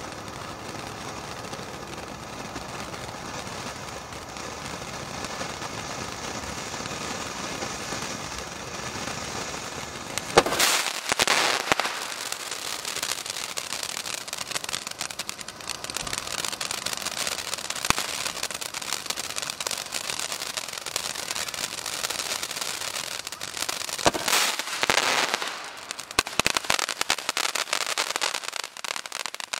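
Consumer ground fountain firework spraying sparks with a steady hiss. About ten seconds in a sharp bang sets off dense crackling that runs on, with a second loud burst of crackle about twenty-four seconds in.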